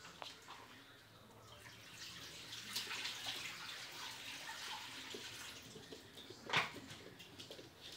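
Labrador puppy sniffing and licking at a cut lemon half, a run of wet smacking and snuffling noises. One sharp, louder knock comes near the end.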